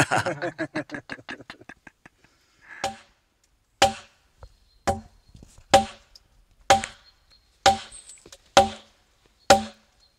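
An axe chopping into a log about once a second, eight blows in all, each a sharp woody knock with a short ring. A short burst of laughter fades out in the first two seconds.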